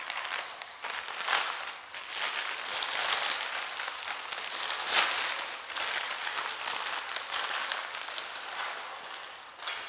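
Clear plastic wrapping crinkling and rustling as a folded tripod is pulled out of it, with a few sharper crackles, the loudest about five seconds in. The crinkling dies away just before the end.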